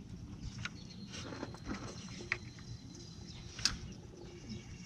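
Scattered light clicks and scrapes of hands working at plastic clips and trim in a headlight opening, the sharpest two about two and three and a half seconds in. A faint, thin, high steady tone runs for a couple of seconds.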